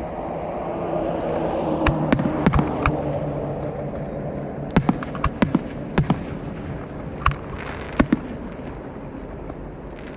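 Fireworks display: sharp bangs of aerial shells bursting at uneven intervals, about nine of them, over a continuous rumble and hiss that swells during the first few seconds.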